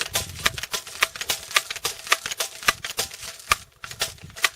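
A quick, uneven run of sharp clicks and taps, about three a second, over a faint steady tone.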